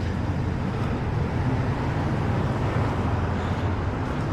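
Steady low rumble of motor-vehicle traffic with an even background wash.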